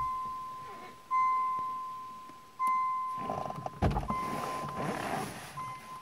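Warning beeper of an anti-dooring car door device sounding a single fading tone about every one and a half seconds, the alert that something is moving alongside while the inside door handle is held half-pulled. About three and a half seconds in, clicks and a thump as the door latch releases and the car door is pushed open.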